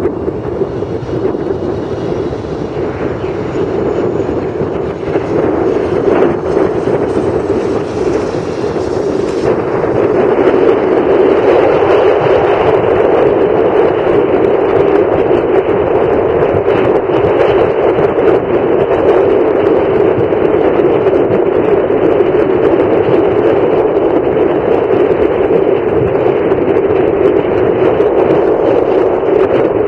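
Boeing 737-700's CFM56 jet engines at takeoff thrust: a loud, steady roar with a strong low hum. About ten seconds in it grows louder and loses its highest hiss.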